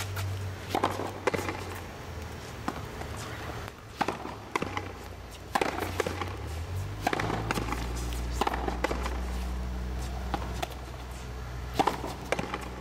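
Frontenis rally: a ball smacked by rackets and hitting the front wall of a fronton court, a series of sharp cracks about every half second to a second and a half, some in quick pairs, over a low steady hum.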